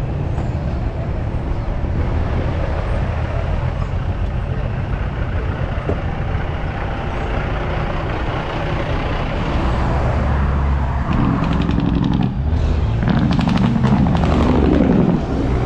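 A truck engine running as it drives along a highway, with steady road noise. Near the end, after a brief break, a louder engine sound rises in pitch.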